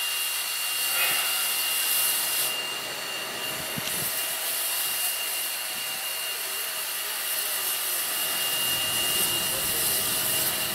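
Steady hiss of steam escaping from the standing narrow-gauge steam locomotive NM25, with a thin high tone running through it. A low rumble joins near the end.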